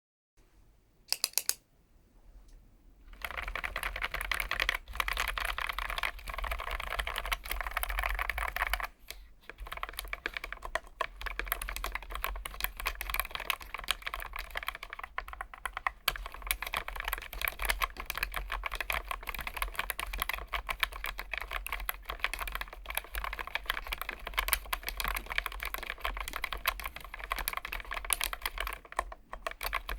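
Typing on a Keychron K1 Max low-profile mechanical keyboard with Gateron switches: a few single keystrokes, then a fast, dense run of key presses from about three seconds in, with a brief pause around nine seconds.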